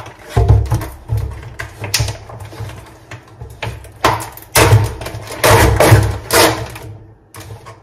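Clear plastic clamshell food package being handled and pried open: crackling, crinkling plastic in a run of sharp bursts, loudest between about four and six and a half seconds, with dull knocks of handling underneath.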